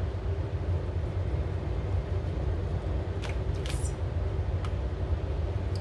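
A steady low background rumble, with a few soft, brief rustles around the middle as a filled tortilla is rolled up by hand on a plate.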